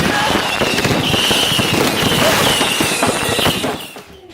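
Fireworks going off in a rapid, dense barrage of cracks and bangs, with a high wavering whistle over them. The barrage dies away about four seconds in.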